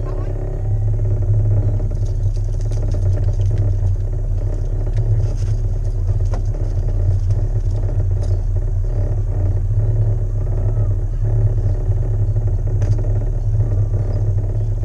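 Boat motor running steadily at low speed, a low hum, with a few faint knocks and clicks on deck.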